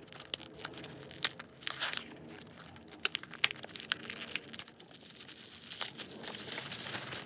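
Wrapping crinkling and tearing as a die-cast toy car is unwrapped by hand: an uneven run of sharp crackles and rustles.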